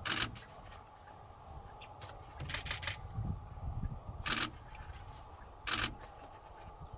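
Camera shutters firing in short bursts about four times, including a quick run of three or four clicks about two and a half seconds in. Under them are a low rumble and a faint, steady high whine.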